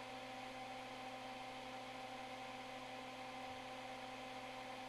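Steady low electrical hum with a faint hiss from running workbench equipment, such as the fume extractor and soldering iron.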